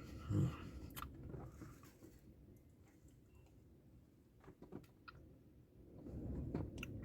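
Eating sounds from spoonfuls of a Blizzard: chewing and a few small clicks, with a low thump about half a second in.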